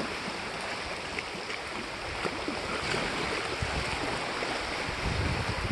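Small waves of Lake Superior washing against a rocky shore, a steady watery rush, with some low rumble near the end.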